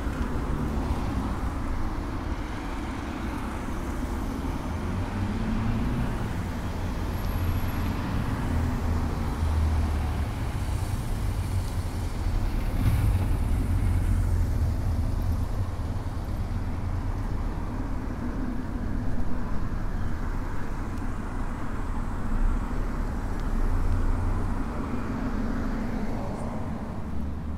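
Road traffic: a steady, deep noise of cars going by, swelling a little now and then as vehicles pass.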